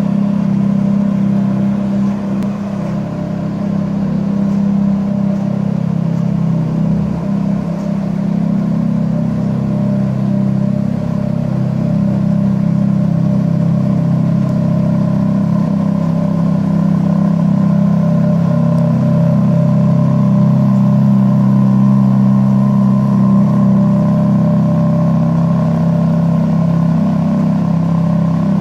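Ferrari F430's 4.3-litre V8 idling steadily, with no revs.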